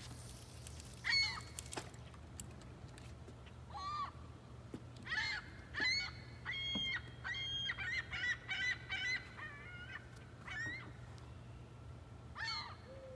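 Wild birds calling: a series of short, harsh calls, a few at first and then bunched close together in the middle, with a single call near the end.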